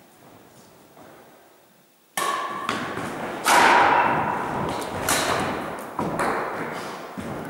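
Badminton rally: a string of sharp strikes of the rackets on the shuttlecock, with footsteps thudding on the wooden gym floor, all echoing in the hall. It starts suddenly about two seconds in, after a quiet opening.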